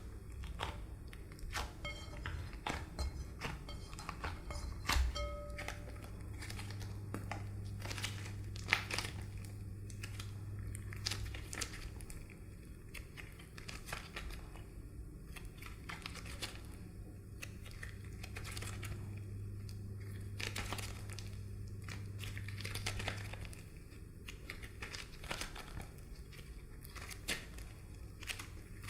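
Slime being handled and mixed: irregular crinkling and crackling clicks, over a low steady hum that stops near the end.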